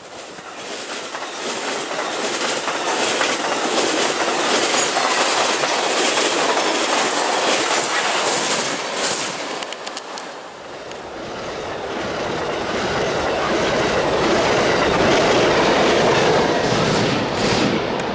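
Amtrak passenger train passing close by at speed, steel wheels running on the rails, the noise building over a few seconds. About ten seconds in it drops away and a second passing train takes over, building louder and deeper.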